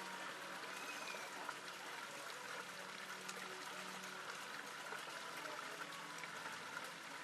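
Steady running water, with faint voices in the background.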